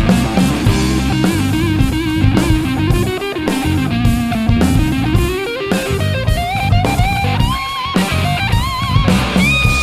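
Electric guitar played through a Line 6 POD GO amp-and-effects modeler over a drum backing: a low riff, then sustained lead notes with bends in the second half.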